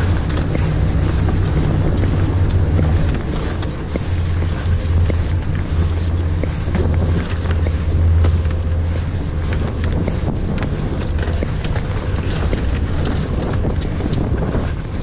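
Fishing boat's engine running with a steady low hum, with wind noise on the microphone.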